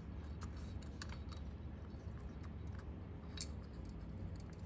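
Scattered light clicks and taps of small metal carburetor parts being handled and fitted together during reassembly, one sharper click near the end, over a steady low hum.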